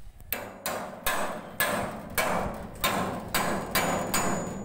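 Claw hammer striking a 6208-2RS sealed ball bearing to drive it into its steel housing on a bagger concrete mixer, about ten sharp metallic blows at roughly two a second, each with a short ring. The bearing is being knocked in until it sits fully home.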